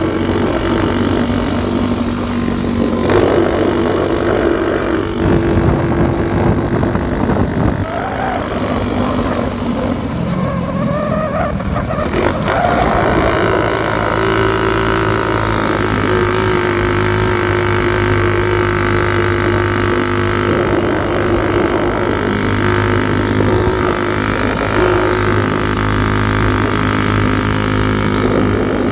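Motorcycle engine running while riding, a steady loud drone whose pitch changes a few times, around 3 and 12 seconds in.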